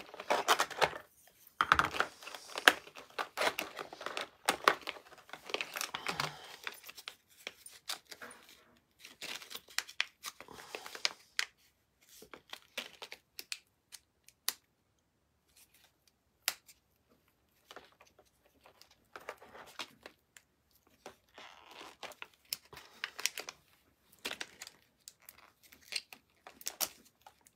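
Clear plastic packaging crinkling and rustling as it is handled: a plastic blister tray and small plastic sleeves, with scattered clicks and taps. The crinkling is busy for the first six seconds or so, then comes in sparser bursts.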